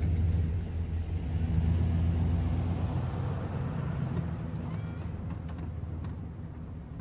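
Snowplow truck's engine running steadily under load while plowing, loudest in the first few seconds and then easing off.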